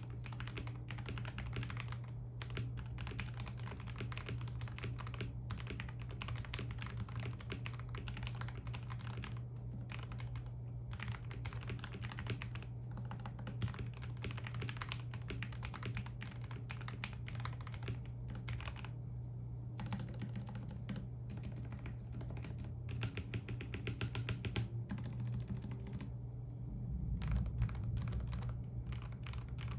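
Fast typing on a DKT66 65% mechanical keyboard with lubed Gateron Milky Yellow Pro linear switches and Aifei doubleshot ABS keycaps, tape- and silicone-modded. About 19 s in, after a short pause, the typing gives way to a stabilizer test: the long stabilized keys are pressed one at a time.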